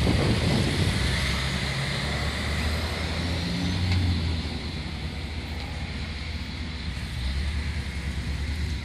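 Ford E-350 ambulance with its 7.3 L gasoline V8 driving slowly past close by, its engine hum swelling about four seconds in. A Detroit Diesel Series 60 fire engine pulls away ahead of it at the start.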